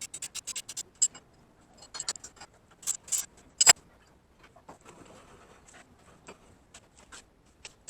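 Light metallic clicks and clinks of metal parts being handled, quick at first, with a few sharper knocks around three to four seconds in, the loudest near four seconds, then only scattered faint ticks.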